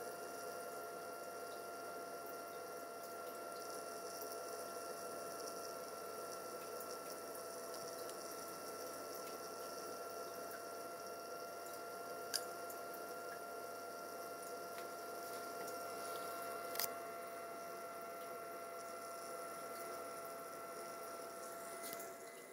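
Steady hiss and hum of running equipment with a faint steady whine. Over it come two short sharp clicks of the aquarium controller's push buttons being pressed, about halfway through and again about four seconds later.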